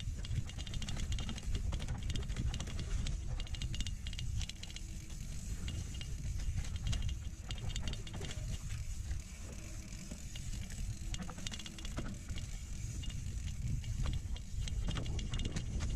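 Mountain bike riding over a dirt trail covered in dry leaves, the bike rattling and clicking over bumps. A heavy low rumble of wind and ride vibration on the microphone runs under it.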